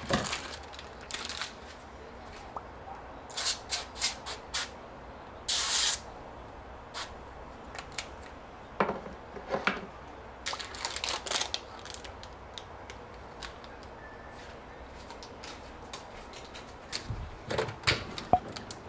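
Intermittent rustling and handling noises: short scraping or rustling bursts and a few clicks, the longest just before the middle, over a faint steady low hum.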